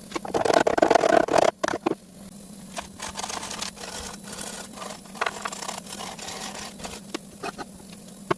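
Scraping and rubbing, loud and rough for the first second and a half, then lighter scraping with scattered sharp clicks, over a steady low hum.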